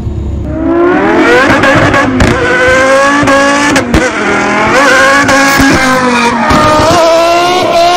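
BMW E46 M3's straight-six engine revving high while drifting, the revs climbing about a second in and then rising and falling repeatedly, with tyres squealing.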